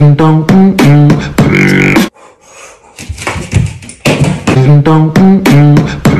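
Beatboxed vocal sounds laid over the clip: a run of short, clipped, pitched vocal notes lasting about two seconds, a quiet gap, then the same phrase again about four seconds in.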